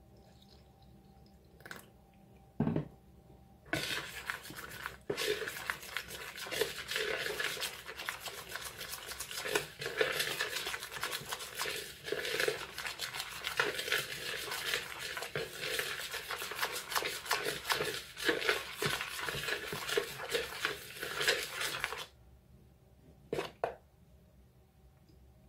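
A table knife mixing milk into cheese scone dough in a plastic bowl: quick scraping and clicking against the bowl. It starts a few seconds in and stops near the end.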